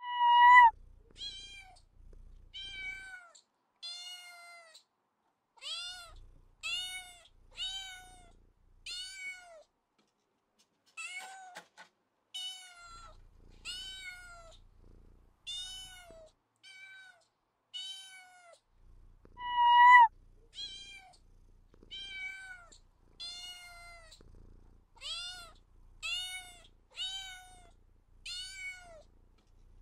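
Cat meowing over and over, short calls that rise and fall in pitch, about one a second, with a brief pause around ten seconds in. The loudest meows come at the very start and about twenty seconds in.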